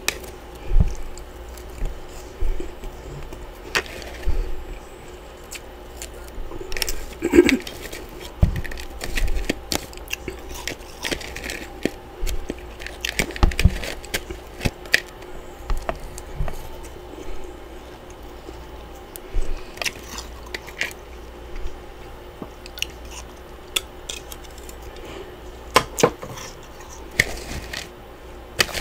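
Close-miked freezer frost being worked by fingers and a metal spatula: irregular crunches, crackles and scrapes, with a few low thumps.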